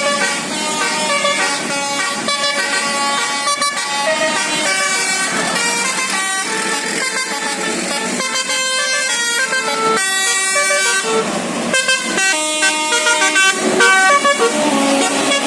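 A bus's basuri telolet horn, a multi-trumpet musical air horn, playing a tune of held notes that step up and down in pitch.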